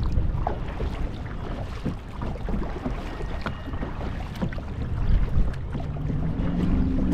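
Kayak paddling on a lake: small paddle splashes and drips over a low rumble of wind on the action-camera microphone. A low steady hum comes in near the end.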